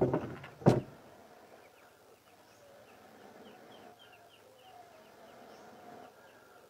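Two short, loud blows of breath in the first second, then a faint background of small birds chirping in quick repeated notes and distant chickens.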